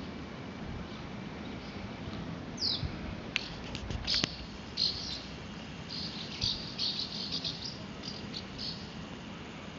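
Swallows twittering: short high chirps, scattered at first and then in quick runs through the second half, over a steady low background rumble.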